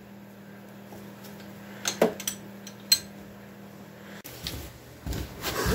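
A few light metal clicks and clinks from the wrench and socket tightening the spark plug, with one sharp click about three seconds in, over a faint steady hum. Shuffling handling noise follows near the end.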